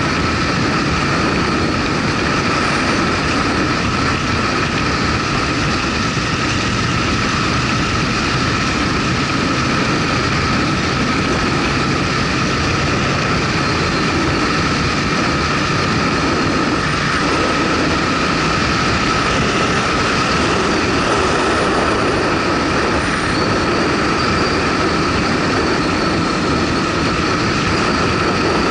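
Motorcycle riding along at a steady pace: engine and wind-and-road noise run as one loud, even rush with no change in pitch, picked up by an action camera on the ride.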